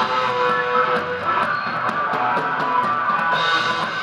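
Live rock band playing, with a flute holding long notes over electric guitar.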